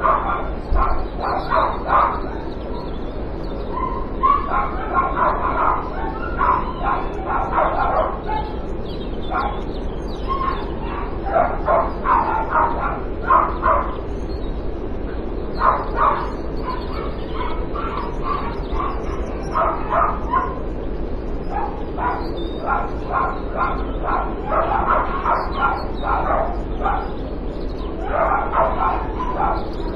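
Dog barking over and over in runs of quick barks, several a second, with short pauses between the runs.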